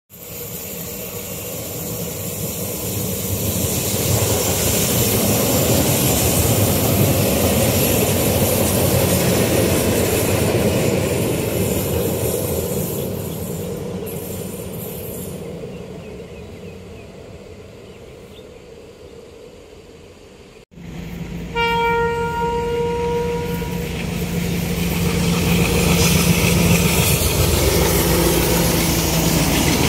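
A KTM Komuter electric multiple unit passes on the line, its running noise swelling and then fading as it moves away. After a cut, a KTM Class 29 diesel-electric locomotive sounds its horn once for about two seconds. Its engine then runs loudly as it hauls cement wagons past.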